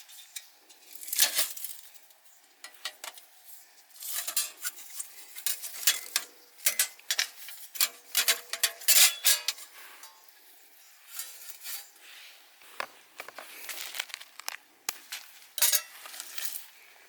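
Irregular clinks, knocks and scrapes of cookware and utensils being handled, in short clusters with brief pauses between.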